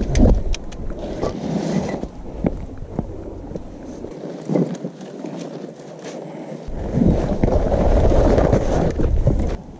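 Wind rumbling on the microphone, heaviest near the end, with scattered scuffs and clicks from people scrambling down over rock.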